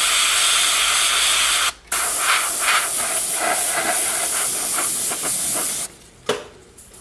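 Airbrush spraying paint with a steady hiss of air, cut off briefly just before two seconds in, then stopping about six seconds in. A couple of light knocks follow.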